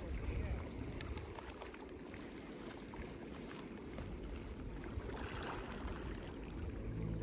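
Waterside outdoor noise: a steady low rumble under wind and water noise, with a few faint clicks. Music fades in near the end.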